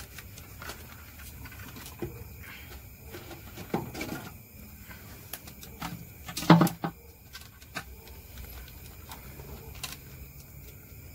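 Handling noise at a three-wheeler's handlebar clutch lever: a plastic parts bag rustling and small clicks and knocks as a new clutch cable is worked into place, with one louder knock about six and a half seconds in.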